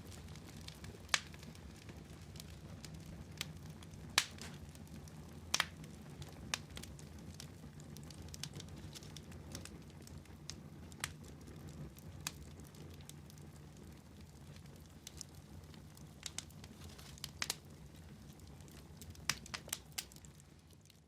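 Fire crackling in a fireplace: a steady low rumble of burning underneath irregular sharp pops and crackles, a few of them louder.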